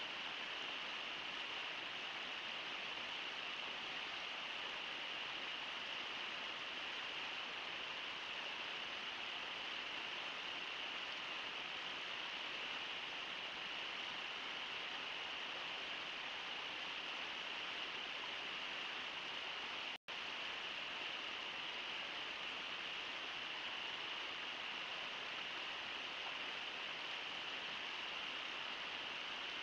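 Steady rush of the Brooks River running over rocks and rapids, an even hiss of water with no change. The sound cuts out completely for an instant about twenty seconds in.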